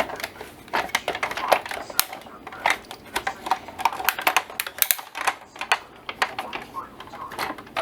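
Quick, irregular clicks and taps of a metal cutting die, cardstock and hard plastic cutting plates being handled and stacked for a manual die-cutting machine.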